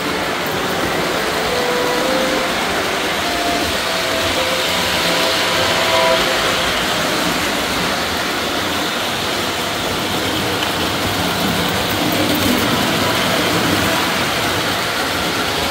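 Toy electric train running on three-rail track: a steady rumble of wheels and motor.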